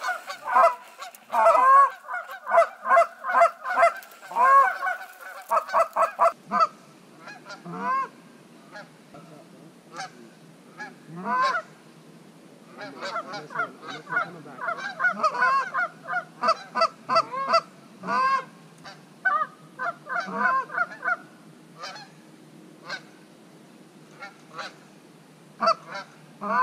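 Canada geese honking, many short honks overlapping. The honks come thick for the first six seconds or so, thin out, come thick again from about 13 to 21 seconds, then turn scattered.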